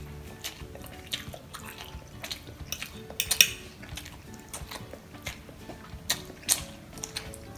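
Metal fork clicking and scraping against a glass dish while twirling instant noodles: scattered sharp clicks, the loudest a little over three seconds in. Soft background music with held notes underneath.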